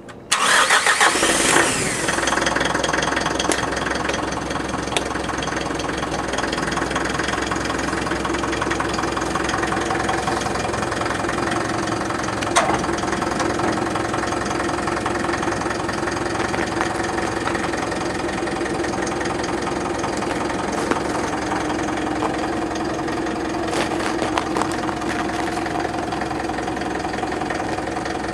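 A light truck's engine starting with a short burst of cranking about half a second in, then catching and running steadily at idle with a steady hum.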